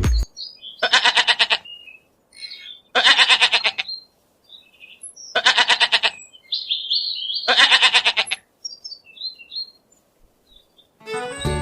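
An animal bleating four times, each a quavering call under a second long, about two seconds apart, with birds chirping in between.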